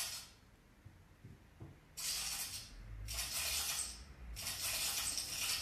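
Cat hissing in repeated breathy bursts, each about a second long, with four in all.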